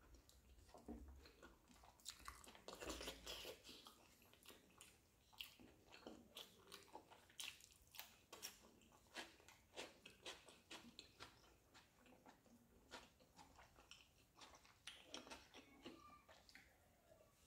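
Faint, close-up chewing and biting of roasted chicken eaten by hand, with many short wet mouth clicks and smacks.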